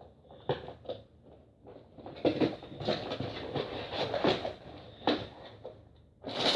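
A cardboard LEGO set box being handled and opened: irregular knocks, scrapes and rustling, with a few sharper clicks.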